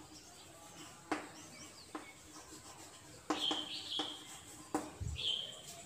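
Chalk writing on a chalkboard: a handful of sharp taps and scrapes as the letters are formed, with short high squeaks from the chalk twice, in the middle and near the end.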